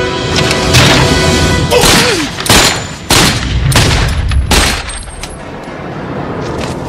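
A string of about six handgun shots over some four seconds, each with a short echo, over dramatic film-score music.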